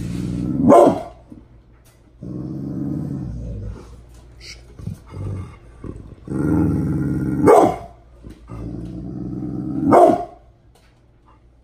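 Brindle American pit bull terrier growling in long, low rumbles, three of which break into a single sharp bark: about a second in, about two-thirds of the way through, and near the end. It is a warning at something seen outside the window.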